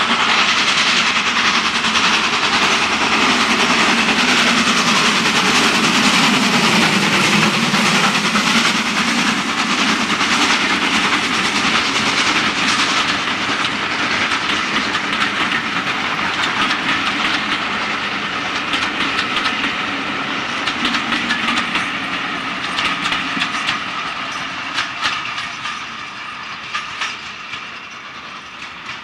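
LNER V2 2-6-2 steam locomotive No. 60800 'Green Arrow' passing at speed with a train of coaches. It is loud at first, with a sound that drops in pitch as it goes by. Then the coaches' wheels clatter in quick clicks over the rail joints, fading as the train draws away.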